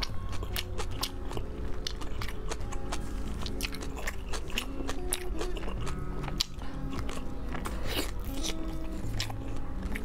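Close-miked biting and chewing of a large pork sausage, a run of many short sharp clicks and wet mouth sounds.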